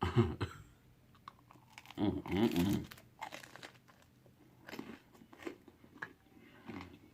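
A person chewing and biting into Greek pizza close to the microphone, with wet mouth clicks and crunches, and a short hum of the voice twice, just after the start and about two seconds in.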